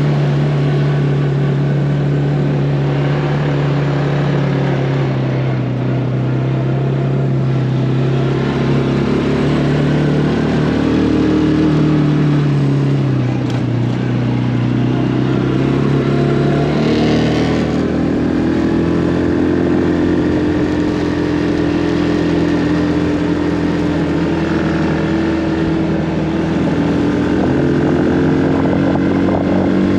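Engine of a side-by-side utility vehicle running as it is driven, its pitch dipping about halfway through and then climbing again.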